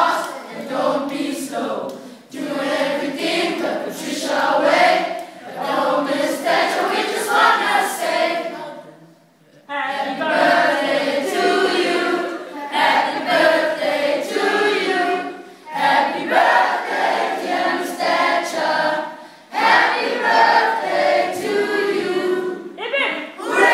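A class of schoolboys singing together in chorus. The singing breaks off briefly about nine seconds in, then starts again.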